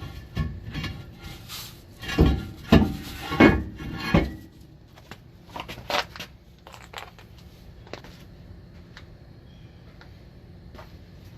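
Handling of workshop tools and brake parts: a run of knocks and clanks with four loud ones in the first half, then a few lighter clicks before it settles to a low background.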